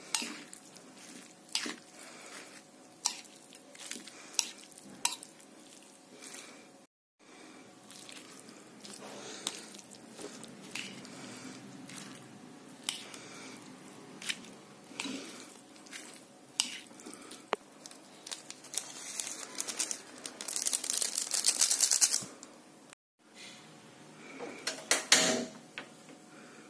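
Kitchenware clinking and scraping on a plate, with many short sharp clicks broken by two brief silent cuts. About three-quarters of the way through there are a few seconds of dense crackling, and near the end comes one loud clatter.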